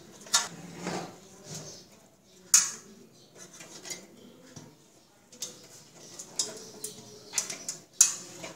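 Scattered clinks, taps and knocks of a rice cooker's opened metal base and its wiring being handled, a few sharp clicks standing out.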